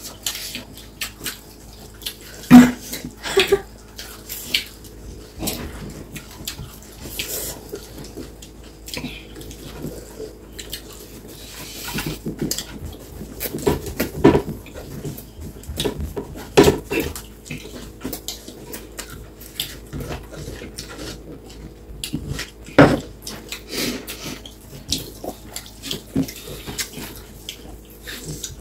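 Close-up eating sounds: wet chewing and mouth smacking, with fingers squishing and mixing rice on plates. A steady run of short clicks and squelches, with a few louder ones, the loudest about two and a half seconds in.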